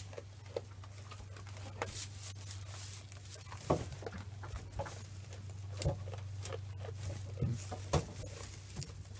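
Nigerian Dwarf goats feeding at a hay rack: rustling hay with irregular sharp knocks and clicks as they pull hay and shove each other at the feeder, over a steady low hum.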